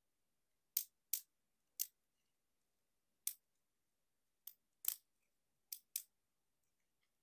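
Sharp plastic clicks from a Transformers Masterpiece MPM-11D Ratchet action figure as its legs and arms are moved and snapped into place. There are about eight separate clicks, the loudest about five seconds in.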